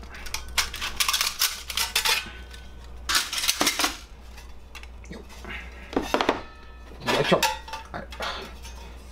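Thick stainless-steel panels of a compact folding fire grill (笑's B-6君) clinking and clattering as they are unfolded and fitted together by hand, in several bursts of metal knocks with brief ringing.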